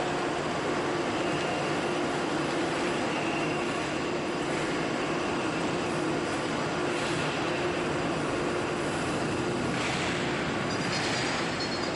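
Steady vehicle running noise: an even rushing drone with a constant hum tone under it, and a stronger hiss coming in near the end.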